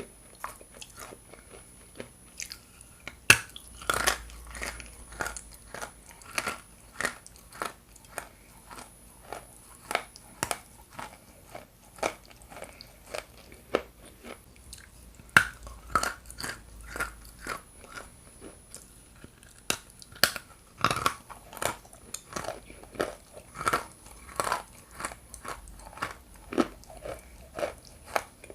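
Dry chunks of edible Ural clay being bitten and chewed: hard, sharp crunches about two a second, with a few louder cracking bites standing out, and chewing grit between them.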